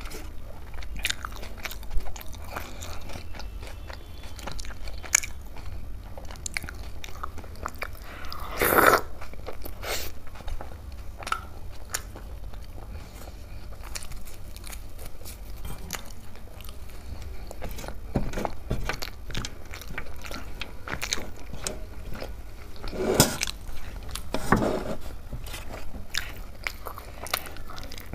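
Close-up mouth sounds of eating tandoori roti dipped in daal makhni: wet chewing and smacking with many short clicks, and a few louder crunches about nine seconds in and twice more near the end.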